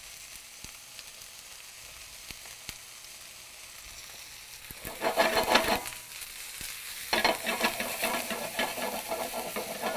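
Sliced onions and mustard seeds sizzling quietly in a hot stainless-steel skillet. About five seconds in, and again from about seven seconds on, a utensil stirs them, scraping and rattling against the pan.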